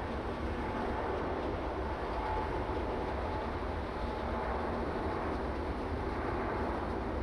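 Airbus A350-900's Rolls-Royce Trent XWB jet engines running steadily at low power during taxi: an even, unchanging rumble with a faint whine.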